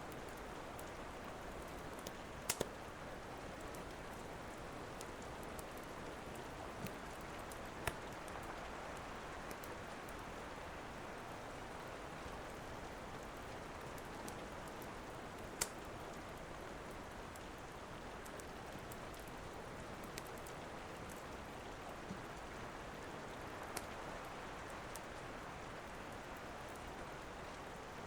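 Steady rain falling, with a few sharp pops from a crackling wood fire in a fireplace: a double pop a couple of seconds in, single ones around eight and fifteen seconds in, and fainter ticks between.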